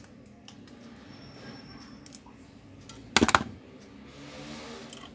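Hand tools and wires being handled inside the open sheet-metal case of a voltage regulator: light clicks, then a short rattling clatter of metal about three seconds in.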